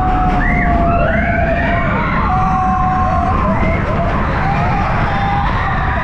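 Roller coaster riders on Expedition Everest screaming and whooping: several overlapping long cries, some held steady and others sliding up and down, over a heavy low rush of wind and ride noise.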